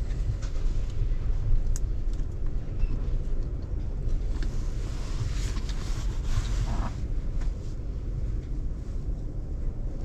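Steady low rumble in the tractor cab, with a few faint clicks and scrapes from hands fitting a part onto the plastic joystick.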